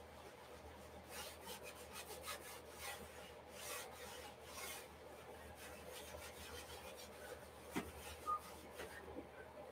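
Acrylic paint being rubbed onto a stretched canvas by hand with a small pad: soft, irregular scrubbing strokes, with two light ticks near the end.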